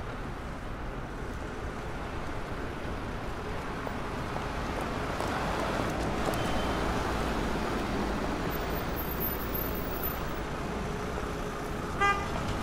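Steady road traffic noise that swells around the middle as vehicles pass, with a short car horn toot near the end.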